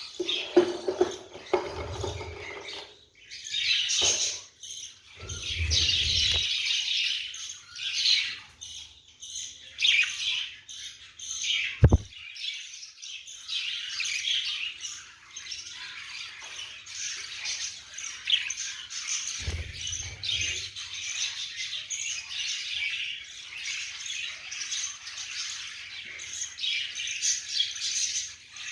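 Budgerigar hen and chicks chirping and cheeping almost without a break. There are low bumps a few times and one sharp click about twelve seconds in.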